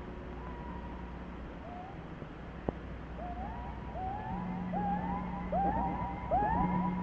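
Film soundtrack of swooping, rising tones over a steady low hum; the swoops come thicker and louder from about four seconds in, with a single sharp click near three seconds.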